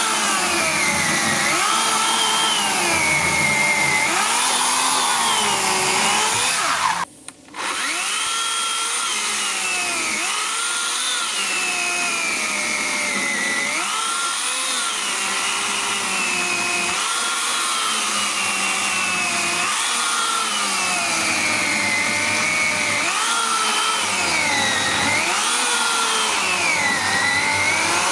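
Makita UC4020A corded electric chainsaw with a 40 cm bar cutting through a thick log. Its motor whine drops in pitch each time the chain bites into the wood under load and rises again as it frees, in waves every couple of seconds. It cuts out briefly about seven seconds in, then runs again.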